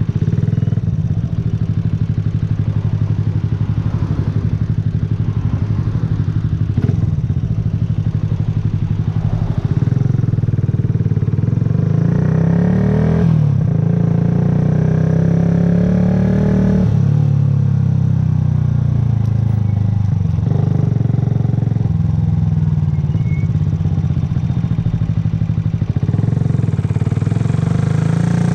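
A 2009 Yamaha YZF-R125's 125 cc single-cylinder four-stroke engine running steadily. About ten seconds in it pulls away, its pitch climbing twice, each climb broken by a sudden drop at an upshift, then it settles back to a steady run and rises again near the end.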